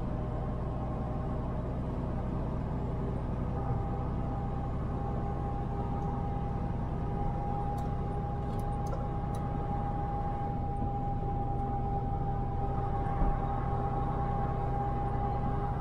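Semi truck cruising on the highway: a steady engine and road drone. A steady whine comes in a few seconds in and holds.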